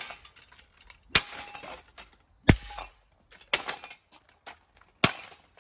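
Cheap ceiling fan canopies being smashed: four hard, sharp blows about a second apart, each breaking the brittle housing and followed by the clink and rattle of fragments.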